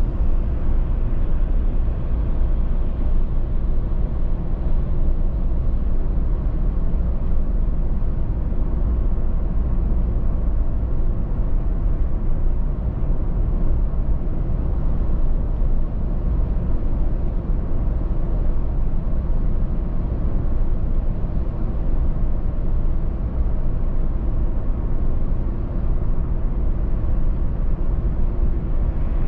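Steady road noise of a car cruising on a highway, heard from inside the cabin: a low, even rumble of tyres and engine with no sudden sounds.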